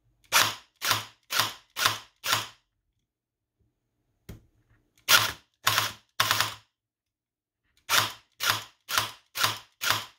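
Airsoft electric gun's V3 gearbox cycling on semi-auto through a microswitch trigger. Each trigger pull fires one short whirring clack, in strings of about two shots a second: five, a faint click about four seconds in, three more, then another five. It sounds harsh, and the owner puts this down to gearbox bearings with a lot of play in them.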